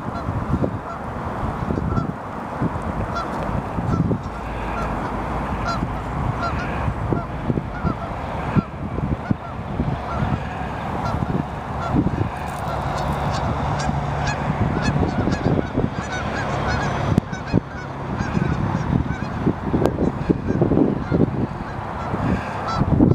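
Flock of geese honking, many short calls overlapping and repeating continually, over a low rumbling noise.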